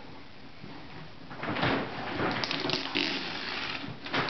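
Wrapping paper rustling and crinkling as a gift box is handled, in irregular bursts that start about a second and a half in.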